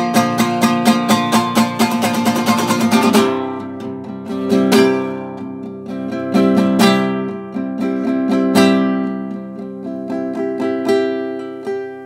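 Nylon-string classical guitar played solo: quick, even strumming for about the first three seconds, then single chords struck every second or two and left to ring.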